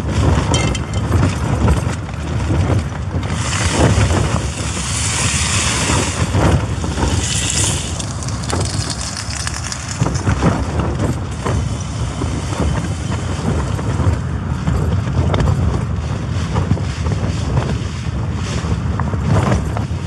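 Gale-force wind buffeting the tent and microphone, a steady low rumble that swells and eases with the gusts. A brighter hissing rush comes in about three seconds in and dies away by about eight.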